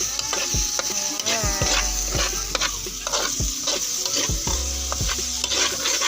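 A spatula stirring and scraping through sizzling sautéed beefloaf in a frying pan, with strokes about twice a second over a steady frying hiss and a brief utensil squeak now and then.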